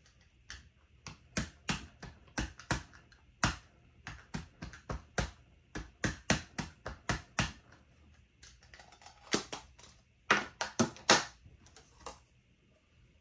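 An ink pad tapped again and again onto rubber leaf stamps held on a clear acrylic stamping plate: quick light taps, two or three a second, then a short pause and a few louder taps near the end.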